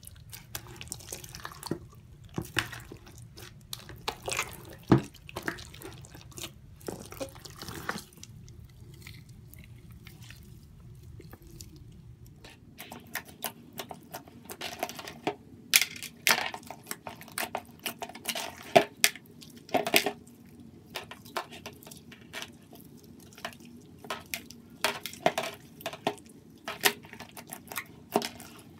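Slime squished and kneaded by hand: a big mass of many mixed slimes giving off wet, irregular pops and clicks. The pops thin out for a few seconds in the middle.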